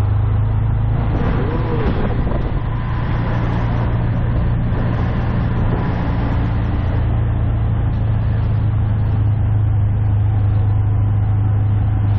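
Auto-rickshaw engine running steadily as it drives along, a constant low drone heard from the passenger seat of the open cabin, with street traffic around it.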